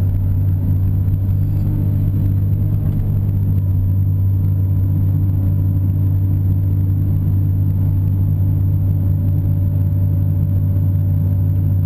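Caterpillar 330 excavator's diesel engine running with a steady low drone while the machine digs, heard from inside the operator's cab.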